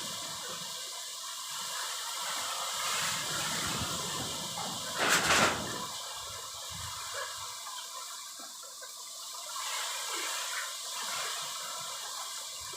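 Heavy rain with strong wind: a steady hiss of falling rain, with a brief louder rush about five seconds in.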